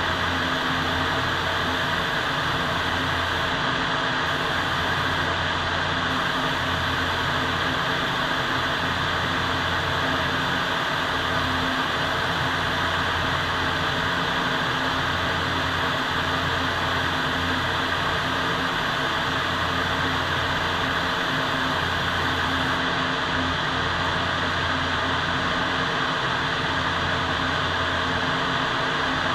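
Steady rushing air in a paint spray booth: the booth's ventilation fans running while a compressed-air spray gun hisses as it sprays paint. The highest part of the hiss cuts out briefly twice early on and stops for good about three-quarters of the way through, as the spraying ends.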